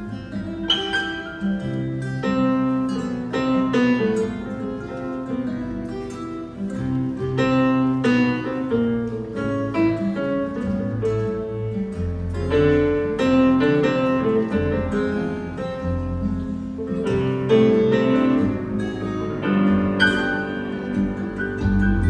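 Grand piano played solo, a lyrical melody over rolling chords, with heavier low bass notes coming in about halfway through.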